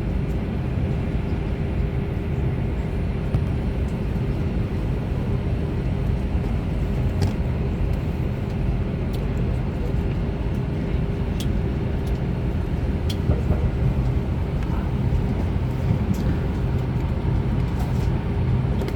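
A vehicle engine runs steadily with a constant low rumble and hum, and faint clicks here and there.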